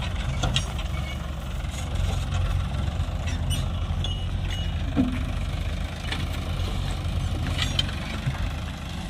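Sonalika tractor's diesel engine running steadily with a low, pulsing throb as it pulls a trolley loaded with soil, with a few sharp clicks and rattles.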